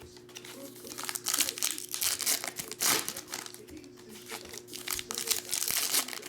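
Foil trading-card pack wrappers crinkling and cards being handled as packs are opened, in irregular bursts.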